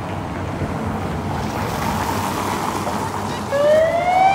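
Steady rushing outdoor noise of a rainy street, building slightly. About three and a half seconds in, a loud tone with several overtones rises in pitch for about a second and is cut off abruptly.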